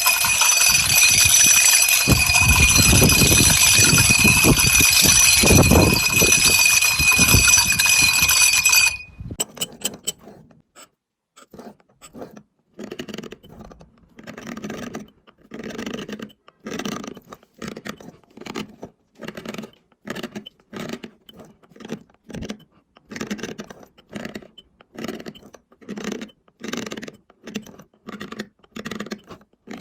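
A power tool runs with a steady high whine on stone and cuts off suddenly about nine seconds in. Then a hand tool works the stone in short, even strokes, about one a second.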